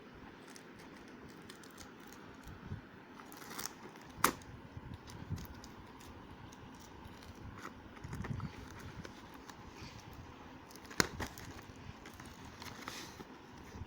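Packaging being handled and cut open: faint rustling with a few sharp clicks, the loudest about four seconds in and again about eleven seconds in.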